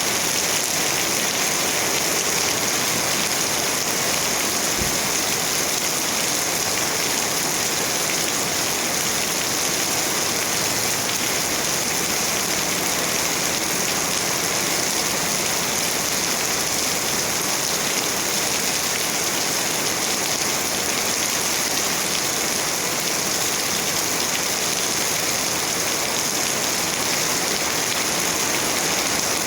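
Steady, heavy rain falling: a dense, even hiss of raindrops on surfaces.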